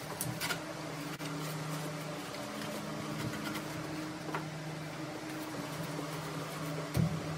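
A steady, low machine hum, with a few light knocks and clunks as wooden blocking is fitted around a stone in a slab saw's vise, and a thump near the end.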